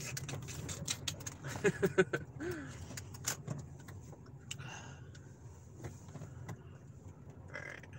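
Car cabin at low speed: a steady low hum of engine and road. During the first three seconds or so a flurry of sharp clicks and rattles comes as the car turns off the street into a parking lot. After that only a few scattered clicks remain over the hum.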